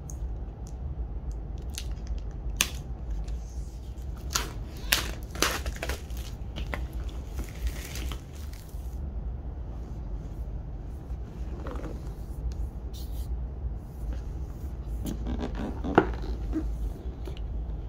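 Cardboard laptop box and its packaging being handled and opened by hand: scattered scrapes, taps and rustles, busiest in the first few seconds, with one sharp click about 16 seconds in, over a steady low hum.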